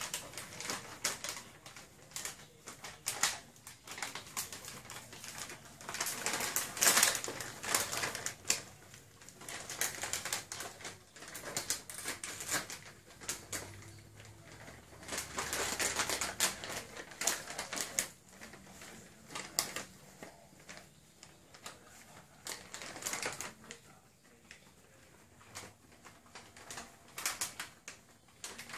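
Plastic crisp packet crinkling and crackling in irregular bursts as a Labrador puppy moves about with its head stuck inside it. The crackling comes in flurries, busiest about a quarter of the way in and again around the middle.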